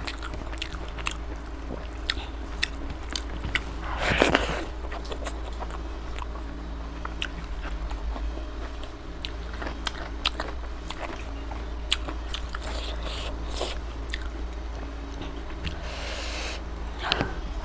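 Close-up eating sounds of chicken curry and rice eaten by hand: chewing with many small wet mouth clicks and smacks, and a louder wet burst about four seconds in and again near the end. A steady low hum runs underneath.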